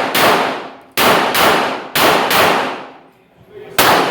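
9mm pistol shots fired in quick pairs about a third of a second apart, as in competition double-taps: one shot just after the start, two pairs, then another shot near the end. Each shot rings out with a long echo.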